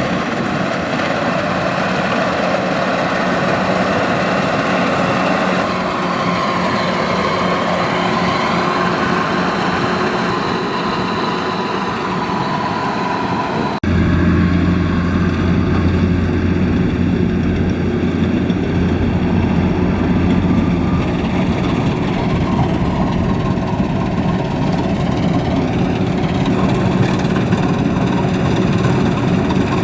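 Kubota DC-93 combine harvester's four-cylinder turbocharged diesel engine running steadily. About halfway through the sound changes abruptly and turns deeper, with a stronger low hum.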